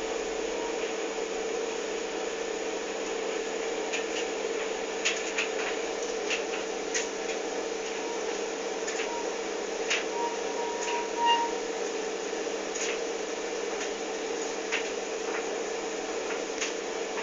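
Indesit IDV 65 tumble dryer running with a steady hum, broken by short sharp squeaks at irregular intervals every second or two and a brief higher squeal about ten seconds in.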